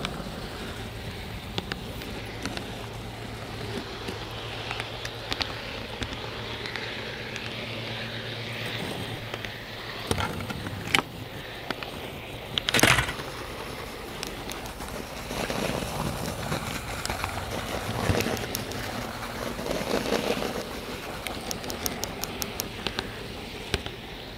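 Rolling noise from a hand-pushed HO-scale model flat car carrying a camera along model railroad track, with a low hum at first and scattered clicks. A sharp knock comes about 13 seconds in.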